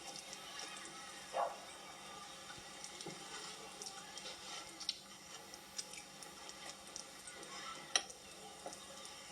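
Steady hiss with scattered small clicks and crackles, and two louder sharp pops, one about a second and a half in and one near the end.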